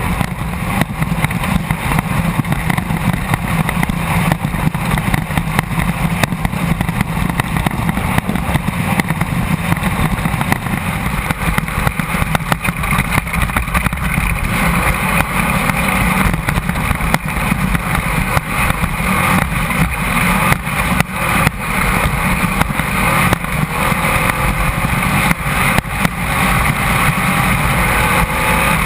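Class 1600 off-road race car's air-cooled Volkswagen engine running hard under load, heard from inside the car over rattling and road noise. Frequent knocks and jolts come in the second half as the car hits rough ground.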